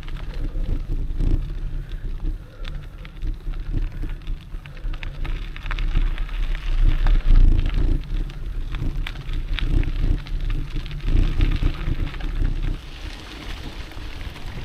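Mountain bike tyres rolling and crunching over a wet gravel and dirt track, with frequent small clicks and rattles and a low rumble of wind on the microphone.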